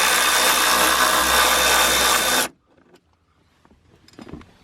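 Milwaukee cordless power tool with a socket running steadily for about two and a half seconds, undoing a seat belt mounting bolt, then stopping abruptly.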